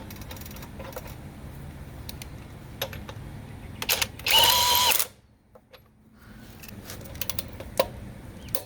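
Cordless right-angle impact wrench triggered briefly with no load, a loud steady whine lasting under a second about four seconds in. Scattered clicks and knocks of tools and sockets being handled around it.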